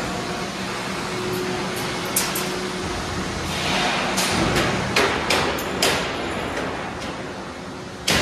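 Steady workshop machinery hum in a large steel-fabrication hall, with a handful of sharp metal knocks, most of them bunched between about four and six seconds in, and one loud knock near the end.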